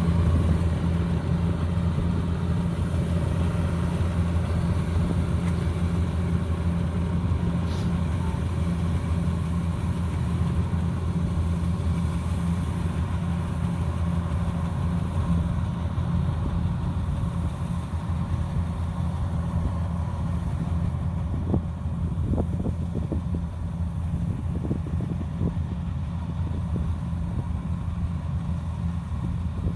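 Kubota DC-105X combine harvester running steadily with a deep, even engine drone. A few short clicks or knocks come through it in the last third.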